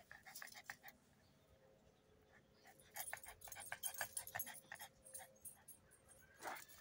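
Pug panting faintly, with a quick, even run of short breaths at about five a second through the middle few seconds.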